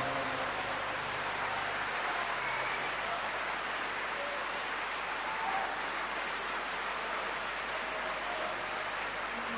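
Concert audience applauding steadily, with a few faint voices among the clapping. The orchestra's final chord cuts off right at the start.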